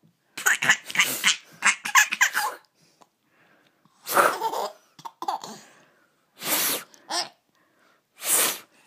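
Baby giggling: a quick run of short giggles, then a few separate breathy laughs with short pauses between them.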